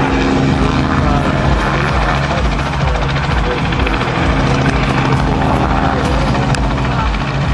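Light helicopter flying low, its rotor and engine running steadily with a fast, even beat.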